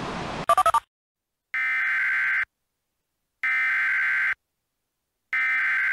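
Emergency Alert System SAME header: three bursts of harsh digital data tones, each about a second long with a second's gap between them, preceded by a brief burst of noise and a few quick beeps.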